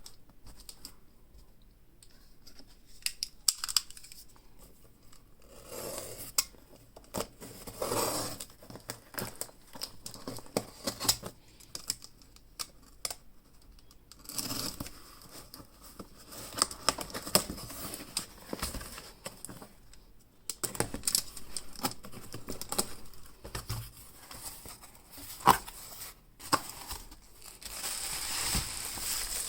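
Smartphone retail packaging being opened by hand: plastic wrap tearing and crinkling, with scattered taps and clicks of the box. The crinkling gets louder near the end.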